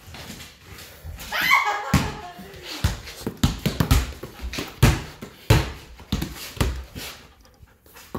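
A dog gives a short whine that falls in pitch, followed by a series of irregular thumps and knocks.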